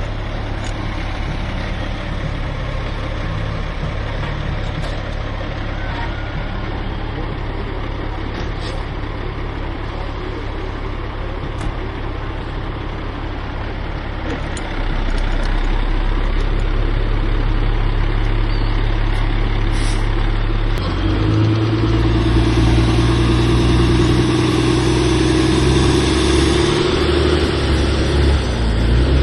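Truck engine running steadily. It gets louder about halfway through, then from about two-thirds of the way in runs harder at a higher, steady pitch.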